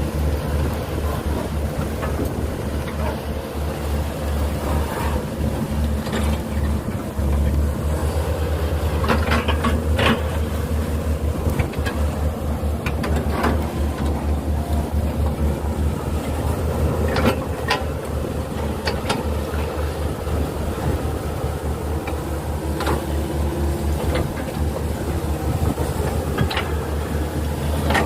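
Hitachi hydraulic excavator's diesel engine running steadily under load, with a few sharp knocks and cracks from the machine working scattered through it.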